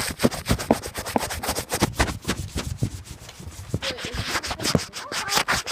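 Rapid, irregular rubbing and scraping close to the microphone, a dense run of scratchy strokes.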